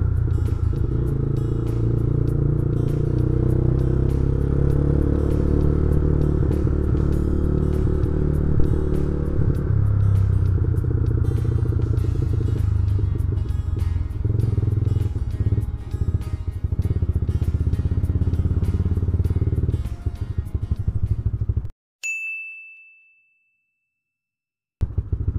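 Yamaha Scorpio's single-cylinder four-stroke engine running at low road speed, with road and wind noise from riding in traffic. About 22 s in the sound cuts out abruptly, leaving one ringing ding that fades, and the engine sound returns near the end.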